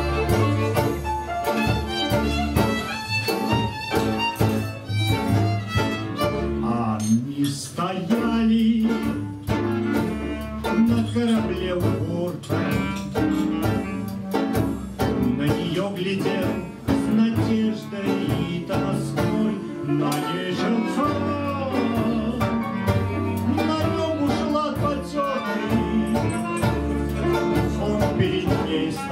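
Small live band playing a tango, with violin, clarinet, double bass and guitar. The violin carries the tune at first and the clarinet plays later on.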